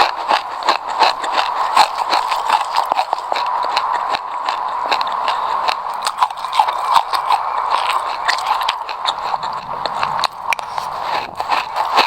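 Close-miked chewing of a mouthful of sesame seeds: many small crackly crunches in quick succession.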